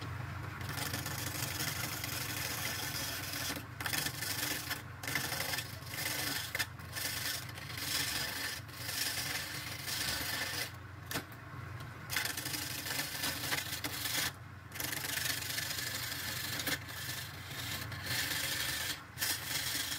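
Wood lathe running steadily while a hand-held turning tool scrapes into the spinning wooden blank, a continuous rasping cut that breaks off briefly several times.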